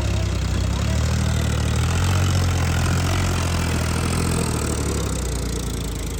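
A vehicle engine running steadily at low revs, a low hum that eases off slightly about four seconds in.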